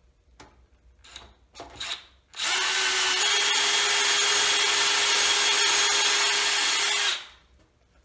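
DeWalt 20 V cordless drill/driver boring a dowel hole in a wood board with a brad-point bit through a doweling jig's guide bushing. It runs at a steady speed for about five seconds, then stops. Before it starts there are a few light clicks.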